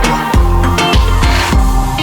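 Background music with a steady, heavy bass beat, about two beats a second, over sustained melodic notes.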